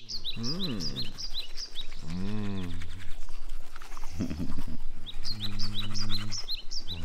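Men brushing their teeth, the bristles scrubbing, while a man's voice hums through the toothbrush in tones that rise and fall and then holds a steady note near the end. A bird chirps in quick repeated runs at the start and again near the end.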